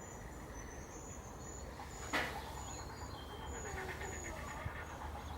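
Birds calling with short, high, thin notes repeated over and over, and a single sharp knock about two seconds in.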